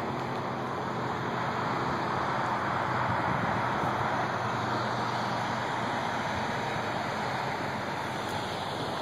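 Steady hiss of highway traffic passing on the road below, swelling slightly a few seconds in.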